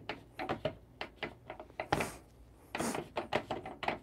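Irregular clicks and light knocks as the top cap of a Turin DF83V coffee grinder is fitted and handled by hand, with two brief scraping sounds about two and three seconds in.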